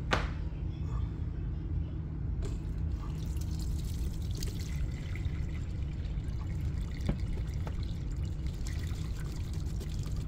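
Hot braising broth being poured from one pot into another, a steady pour and trickle, with a sharp knock just after the start and a smaller one about seven seconds in.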